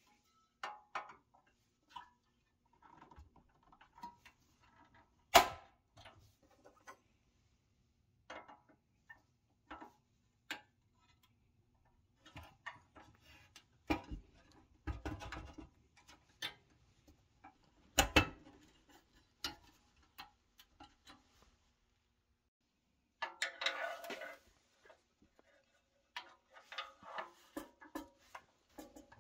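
Scattered clicks, taps and sharp snaps of plastic stake rails being seated into the pressed-steel bed of a restored Nylint toy truck. The loudest snap comes about five seconds in. Near the end there is a quick run of small ticks as a plastic wheel is turned by hand.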